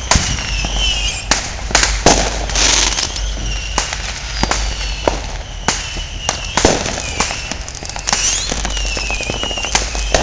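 Consumer fireworks going off all around: aerial shells and firecrackers banging and popping at irregular intervals, some sharp and loud, others softer, with high whistling tones falling in pitch now and then.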